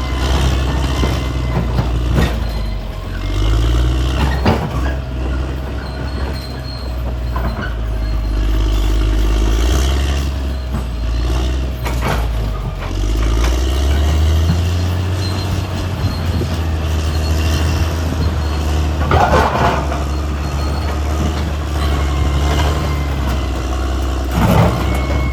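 CAT D6R XL crawler bulldozer at work. The diesel engine runs under changing load, its pitch rising and falling, with steel-track clatter and several sharp metallic clanks. There is a louder clattering burst about three quarters of the way in.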